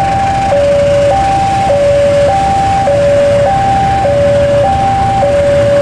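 Railway level-crossing alarm sounding a steady two-tone signal, a higher tone and a lower tone alternating about every half second, over the low rumble of a diesel-hauled passenger train approaching.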